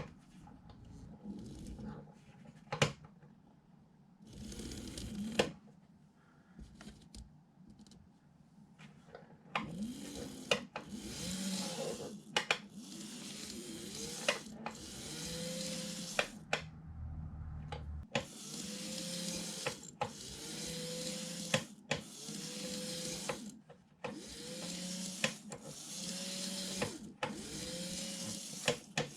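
Small electric motor of a KATO N-gauge model train run in about a dozen short bursts of around a second each, spinning up in a rising whine each time before holding steady, with a click at each start and stop. Before the bursts begin there are only faint handling clicks.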